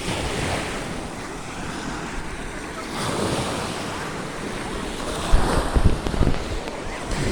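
Sea of Azov waves washing onto a shallow shore in a steady rushing surge, with wind buffeting the microphone in gusts, strongest about five to six seconds in.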